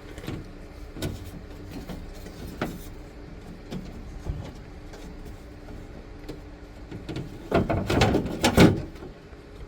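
Hands working at a small clip on a van's door lock cylinder: scattered light clicks and knocks over a faint steady hum, then a burst of louder rattling and scraping about eight seconds in.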